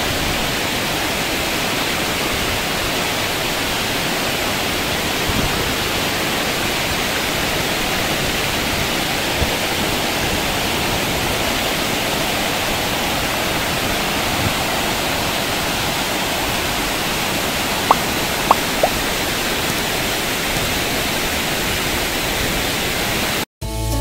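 Steady rush of falling water from a waterfall, with three faint short ticks about eighteen seconds in. The water cuts off abruptly at the very end, and music begins.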